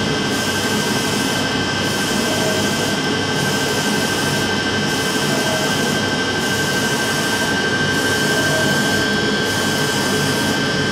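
UV flatbed printer printing on leather: a steady mechanical whirr with a constant high whine, changing regularly about once a second as the print-head carriage sweeps back and forth.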